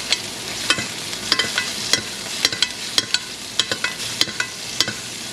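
Chicken breast sizzling in hot fat in a tilted stainless steel pan while it is basted with a metal spoon, about a dozen sharp clicks from the spoon striking the pan.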